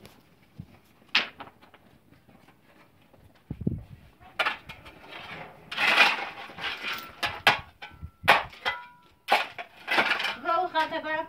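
A wooden stick knocking and scraping against stony ground, in a run of irregular knocks. A voice starts near the end.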